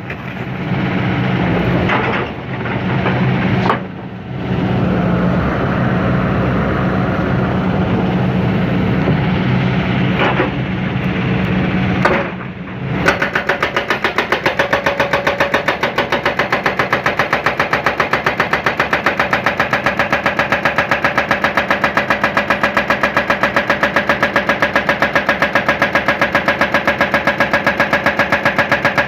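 Diesel engine of a John Deere 160C excavator running. It drops out briefly a few times in the first half, then from about halfway settles into a steady, even pulsing.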